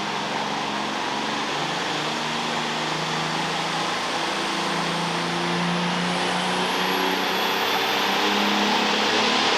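Super Farm pulling tractor's turbocharged diesel engine running hard under load, growing gradually louder. A high whine rises steadily in pitch over the last few seconds.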